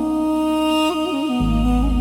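Background music: a held melodic line with small ornamented turns in pitch, joined about two-thirds of the way in by a low sustained drone.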